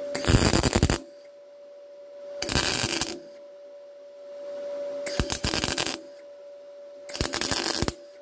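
MIG welding arc crackling in four short bursts of under a second each, laying dabs of weld to build up a layer along a steel edge, over a steady hum. The welder himself says the weld is probably running a little too cool.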